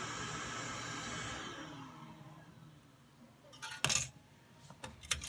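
Minute Key kiosk's automated key-cutting machine running with a steady whir that winds down and fades about two seconds in. About four seconds in, a sharp metallic clink as the freshly cut key drops into the dispensing tray, followed by a few lighter clicks.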